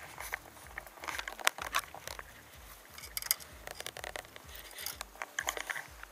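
Irregular clicks, taps and rustles of handling as a small European perch is swung out of the water on a spinning rod and grabbed by hand.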